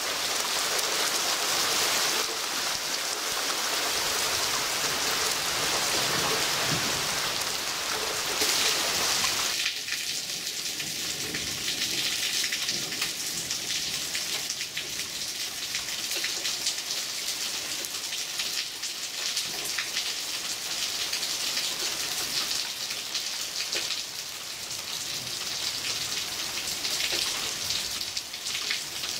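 Heavy rain pouring down steadily in a thunderstorm, a dense hiss of falling drops. The downpour sounds a little thinner and quieter from about a third of the way in.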